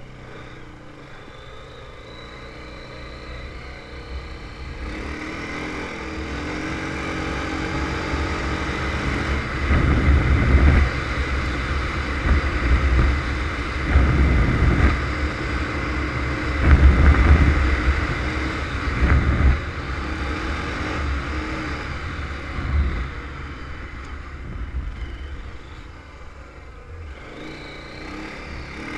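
Honda TRX500 Foreman ATV engine running under way as the quad is ridden. It builds up from about five seconds in, surges loudly several times between about ten and twenty seconds in, then eases off near the end.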